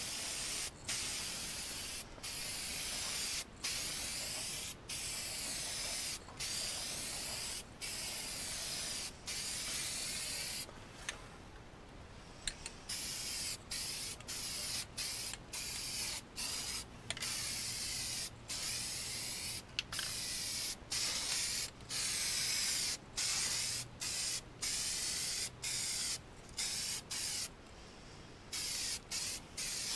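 Aerosol spray can of primer hissing in many short bursts, each a second or two long with brief pauses between, as bare aluminium parts get a coat of corrosion-protection primer.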